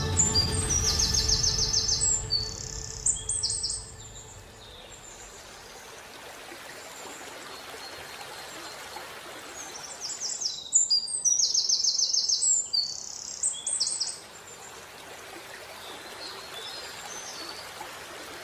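A small songbird singing in two spells of rapid, high trilled phrases, each a few seconds long, over a steady background hiss.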